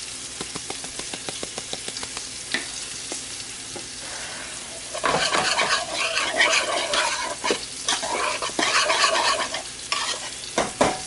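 A few light clicks, then from about halfway a spoon stirring and scraping through thick parsnip and potato puree in a pot as it is seasoned with salt and pepper.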